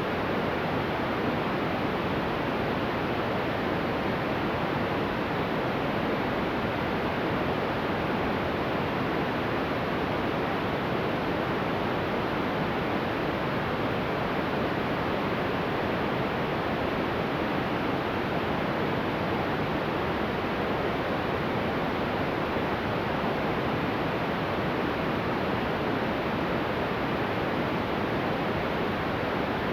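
Steady, unchanging hiss of static on an Emergency Alert System broadcast, standing where the spoken warning message should be: the alert's voice audio has failed.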